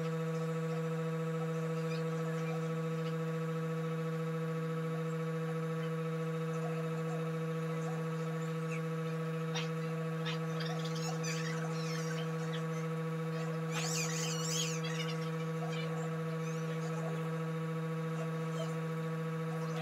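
Steady electrical hum made of several fixed tones, unchanging throughout, with a few faint high chirps about halfway through.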